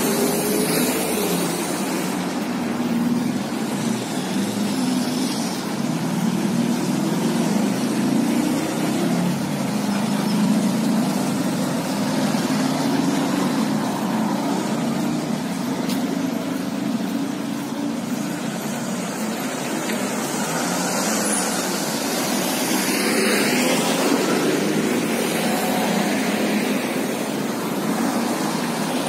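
Motor vehicle running: a steady low engine hum that shifts gently up and down in pitch, over road noise.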